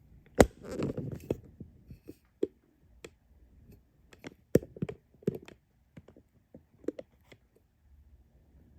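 A run of irregular clicks and light knocks from the Casablanca ceiling fan's pull chain and fob being handled. The sharpest knock comes about half a second in and another about four and a half seconds in.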